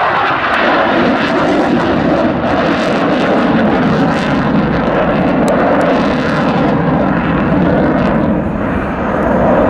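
F-16 fighter jet flying a display overhead, its jet engine loud and steady, with the pitch sliding down in the first second.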